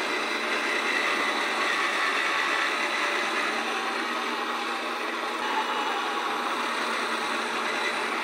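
Yonanas frozen treat maker's electric motor running steadily, its blade grinding frozen blueberries pushed down the chute into soft purée.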